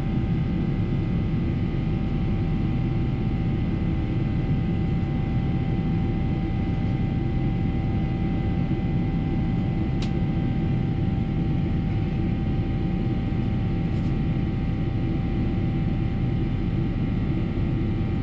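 Steady cabin noise inside a Boeing 777-300ER climbing out: a low rumble of airflow and its GE90-115B turbofans at climb power, with faint steady whines above it. Two faint clicks sound about ten and fourteen seconds in.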